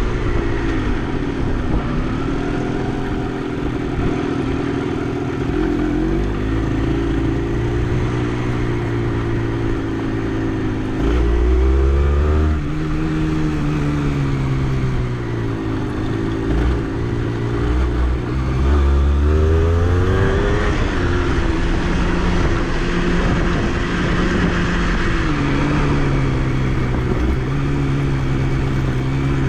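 Honda CRM80's small two-stroke single-cylinder engine running as the dirt bike is ridden, its pitch dipping and climbing with the throttle, with two clear rises in revs around twelve and nineteen seconds in.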